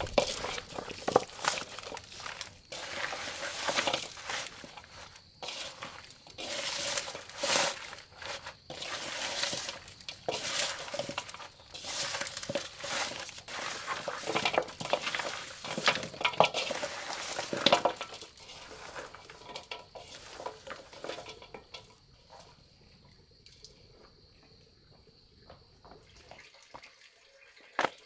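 Dishes and utensils being handled during food preparation: irregular knocks and clatters with some wet, liquid sounds. Near the end the clattering gives way to a quiet stretch with a steady high-pitched tone.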